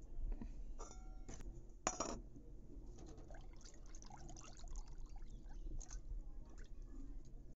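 Curd and water being mixed by hand in a bowl, with wet swishing and small splashes. A ringing clink and a sharp knock come in the first two seconds.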